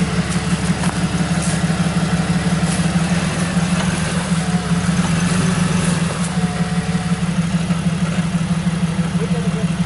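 Jeep Wrangler YJ engine idling steadily, with no revving.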